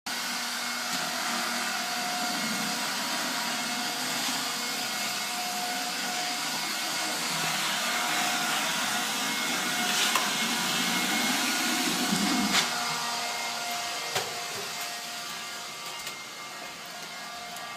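Vacuum cleaner running steadily with a whirring hiss, with a few sharp knocks as it bumps along, and a little quieter near the end.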